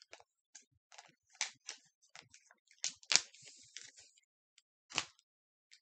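Paper and cardboard laptop packaging being handled: a run of short crinkles and taps, the loudest about three seconds in and another near five seconds.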